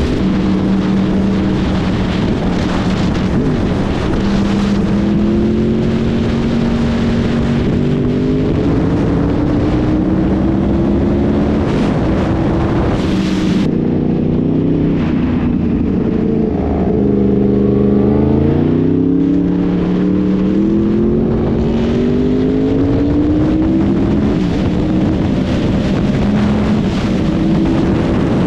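Yamaha R1 sportbike's inline-four engine heard from the rider's seat, pulling at speed with its pitch climbing and stepping back at each gear change, over heavy wind noise. About halfway through the revs fall away and then climb again as the bike slows and speeds back up.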